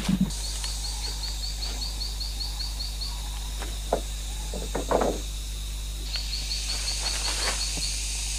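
Forest ambience with a high, rapid chirping call, about five chirps a second, heard in two runs, near the start and again near the end. In between, a few hollow knocks of bamboo poles being handled and set against each other.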